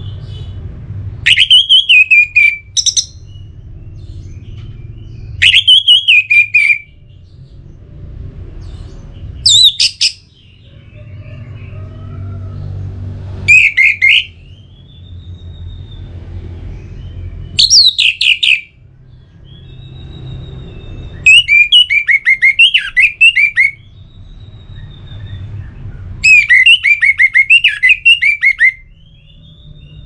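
Orange-headed thrush singing: loud phrases every few seconds, some a falling whistle, others fast chattering runs of notes, the longest about two and a half seconds, with a low steady rumble underneath.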